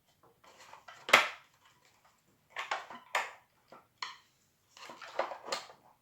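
Small hard clicks, knocks and rattles of a screwdriver and small bolts being worked into a melodeon's wooden keyboard, with one sharp knock about a second in and clusters of clicking after.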